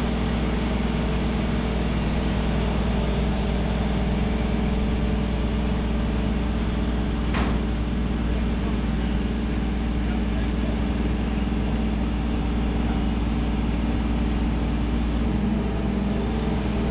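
Crane engine running steadily as it lifts a heavy sailboat on a cable, spreader frame and straps, with one short sharp click about seven seconds in.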